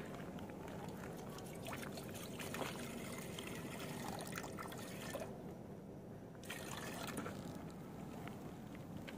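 Water poured from a plastic bottle into a steel pot, trickling and splashing, with a break of about a second just past the middle.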